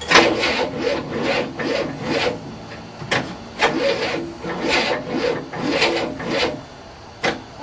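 1967 Cadillac's 429 V8 being cranked by its starter, turning over slowly with a rasping chug about two or three times a second, in three runs with short pauses between them. The engine does not catch.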